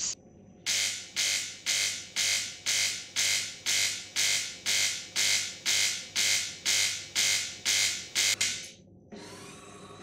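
De'Longhi Magnifica bean-to-cup coffee machine's 15-bar pump buzzing loudly during the rinse cycle in pulses of about two a second, with no water delivered: air is trapped in the pump. The buzzing stops about nine seconds in, giving way to a fainter steady hum.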